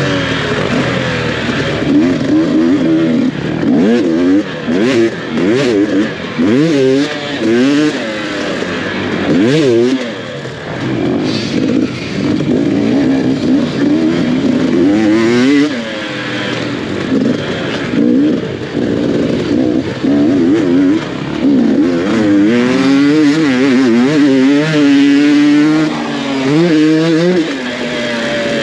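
Off-road dirt bike engine revving hard and backing off over and over, its pitch climbing and dropping every second or two as the throttle is worked and gears change along a rough trail.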